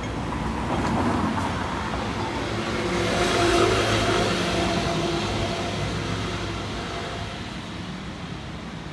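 A motor vehicle passing along the street amid city traffic noise. It swells to its loudest about three and a half seconds in, then slowly fades.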